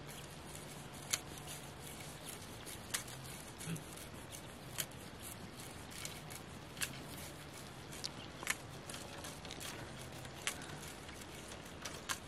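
A knife splitting and shaving green bamboo into thin strips: sharp clicks and snaps every second or two as the blade works along the cane.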